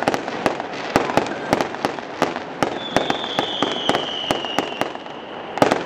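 Fireworks display: aerial shells bursting in a quick, irregular string of sharp bangs with crackling between them. A high whistle, falling slightly in pitch, sounds for about two seconds from around three seconds in.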